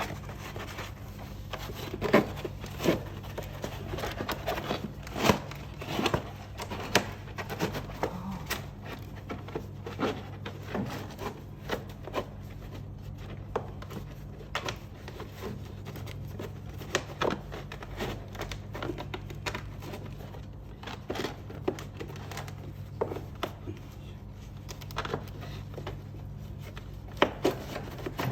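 Irregular clicks, knocks and rubbing from hands working parts of a noodle-making machine loose to take off its conveyor belt, over a steady low hum.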